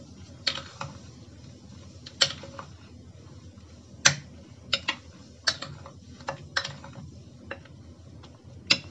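A metal spoon stirring chicken pieces in Sprite in a glass bowl, clinking sharply against the glass at irregular intervals, about eight times, loudest about four seconds in.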